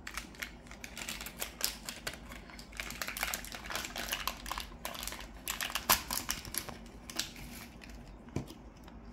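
Plastic snack packet crinkling and crackling as it is torn open and worked by hand: a long run of quick, irregular crackles with a sharp peak about six seconds in.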